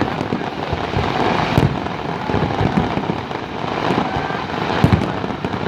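Aerial fireworks display going off: a rapid, continuous run of booms and crackles, with sharper bangs about a second and a half in and near the end.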